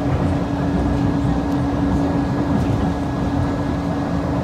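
Airport ramp noise of jet engines running at idle: a steady rumble with a constant hum.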